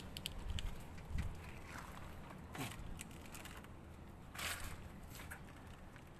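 Gloved hands sifting through debris and bones in a concrete tomb niche: faint rustling and scraping, with a few short scrapes, the clearest about two and a half and four and a half seconds in.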